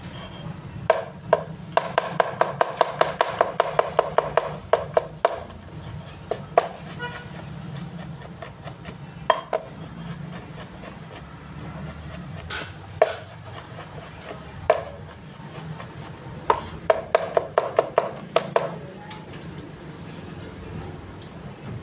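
Cleaver chopping garlic cloves on a wooden cutting board: two runs of quick knocks, about five a second, with scattered single chops in between.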